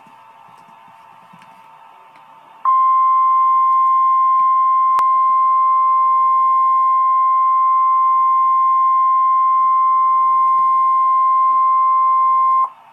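NOAA Weather Radio 1050 Hz warning alarm tone. After about two and a half seconds of faint radio hiss, a single loud, steady beep-like tone starts abruptly and holds for about ten seconds, then cuts off. It is the alert signal that sets off weather radio receivers ahead of a tornado watch message.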